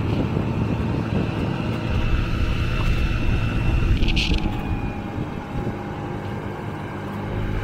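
50cc moped engine running steadily while riding, with wind rushing over the microphone. A brief hiss about four seconds in.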